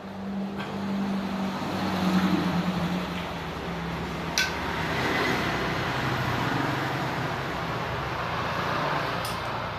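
A motor vehicle engine running steadily, growing louder about two seconds in, with a sharp click about four seconds later.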